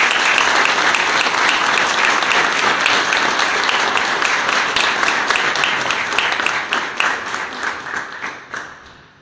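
A small group of people applauding, a steady patter of clapping that thins out and dies away over the last couple of seconds.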